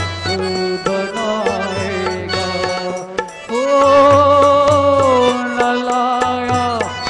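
Live bhajan performance: tabla strokes under sustained melody notes. From about halfway through, a singer holds one long, wavering note.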